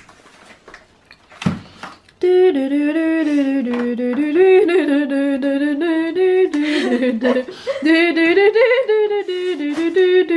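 Background music led by a sung vocal melody that starts suddenly about two seconds in, after a short quiet stretch with a couple of faint knocks.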